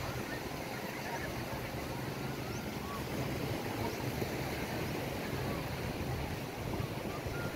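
Beach ambience: a steady wash of small waves and wind on the microphone, with faint distant voices of people on the beach.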